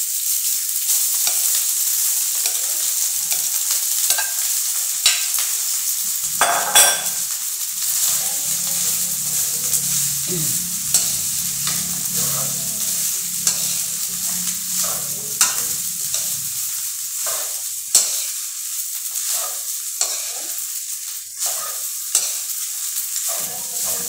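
Cooked rice frying in hot oil with garlic in a metal pan, a steady sizzle, while a spatula stirs and scrapes it around the pan in repeated scrapes and knocks. A low steady hum sounds underneath for about ten seconds in the middle.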